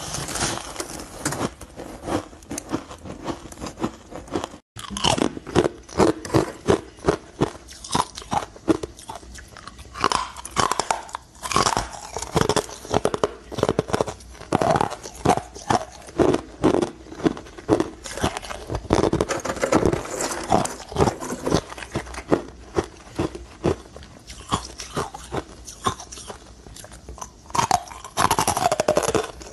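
Close-miked biting and crunching of frozen ice: first a block of powdery packed ice, then, after a brief gap about five seconds in, small pieces of crushed ice chewed in quick runs of sharp crunches.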